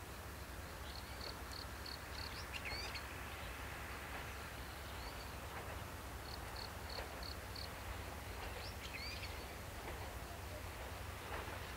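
Birds calling faintly: two runs of about six short, evenly spaced high chirps, plus a few quick downward-sweeping calls, over a steady low outdoor background.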